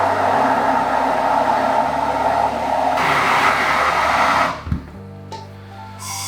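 MAPP gas torch flame burning with a steady hiss, heating a copper pipe fitting to loosen it. About four and a half seconds in the flame sound stops abruptly with a low thump.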